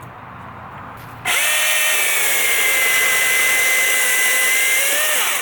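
Milwaukee M18 battery-powered chainsaw triggered, its electric motor and chain whining at a steady high speed for about four seconds, then winding down as the trigger is released.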